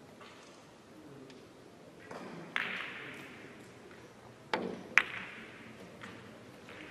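Billiard shot: a cue strike on the ball about four and a half seconds in, followed half a second later by a louder sharp click of ball hitting ball, ringing in a large hall. An earlier sharp click with a ringing tail comes about two and a half seconds in.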